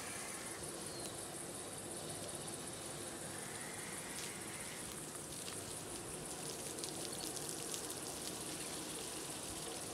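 Water from an open garden hose splashing steadily onto grass, over a constant high buzz of insects.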